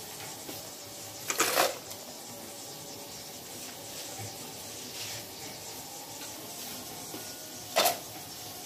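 Crushed ice tipped into a glass blender jar: a short clatter about a second in and another, briefer one near the end.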